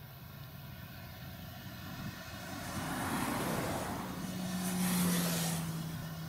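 Claas Lexion 770 TT combine harvester running as it harvests, a steady mechanical hum. About halfway through its noise swells loudly, peaking twice, as it passes nearest, and a steady hum-tone comes in that sinks slightly toward the end.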